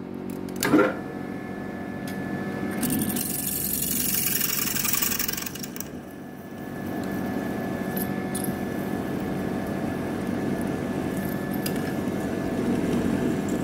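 Mini mill spindle running steadily while a 6 mm high-speed steel drill bit cuts into metal at a slower speed than 1680 RPM, which was far too fast for the bit. There is a sharp knock about a second in, and a hissing stretch of cutting noise a few seconds in.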